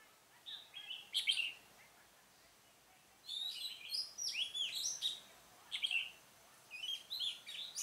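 Oriental magpie-robin singing: bursts of varied, high whistled phrases with notes sweeping up and down, a short one about half a second in, a longer run from about three seconds to six, and another near the end.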